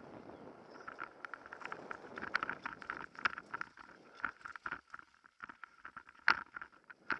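Mountain bike rattling and clattering over a rough dirt singletrack descent, with irregular sharp clicks and knocks from the bike and camera mount, the loudest about six seconds in. Wind rushes over the microphone in the first couple of seconds.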